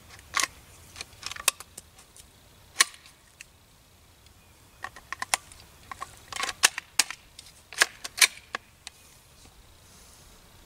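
Irregular metallic clicks and clacks of a Hi-Point 9mm carbine being worked by hand to clear a double feed, in scattered clusters with the busiest run about two thirds of the way through.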